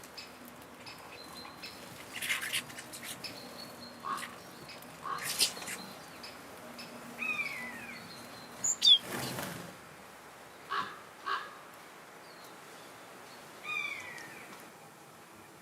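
Birds calling: a string of short, separate calls, several of them sliding down in pitch, with the loudest, sharpest call about nine seconds in.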